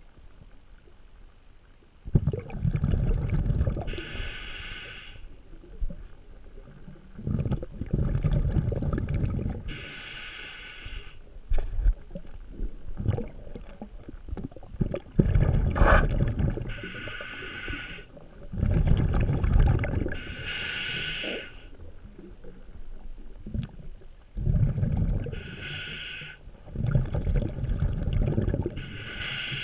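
Scuba diver breathing through a regulator underwater: a hissing inhale, then a rumbling rush of exhaled bubbles, repeating over several breaths about every five to six seconds.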